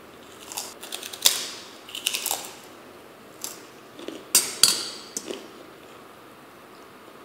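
Crisp crunching of a puffed kerupuk cracker being bitten and chewed close to the microphone. From about three and a half seconds in, a metal fork clinks and scrapes against a stainless steel pot while stirring instant noodles, with one sharp ringing clink the loudest.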